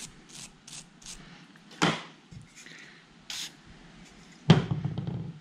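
Small brush scrubbing corrosion out between a spinning reel's seized bearing and its gears, in short quick strokes. There is a sharp click about two seconds in, and a louder knock with a rattle of handling about four and a half seconds in.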